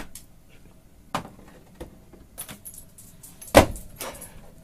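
A plastic pet-door flap clattering and a long rawhide bone knocking against the door as a dog shoves through with the bone caught crosswise. Several sharp knocks and rattles, the loudest about three and a half seconds in, with the flap rattling just after it.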